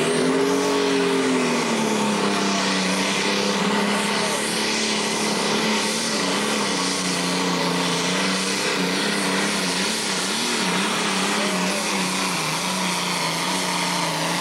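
International Harvester super stock pulling tractor's turbocharged diesel engine at full power, dragging a weight-transfer sled down the track. The engine note climbs in the first second, dips, then holds high and loud, wavering up and down in pitch partway through the pull.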